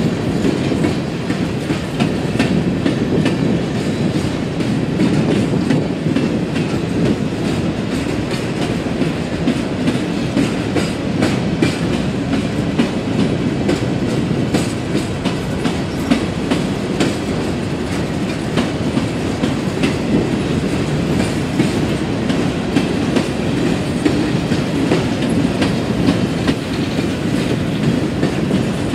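Empty steel coal hoppers of a CSX freight train rolling past: a steady rumble of steel wheels on rail, with a continuous clickety-clack of wheels over rail joints.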